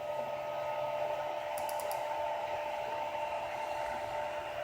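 RepRap 3D printer's cooling fans running with a steady whir and hum. A few faint high ticks come about a second and a half in.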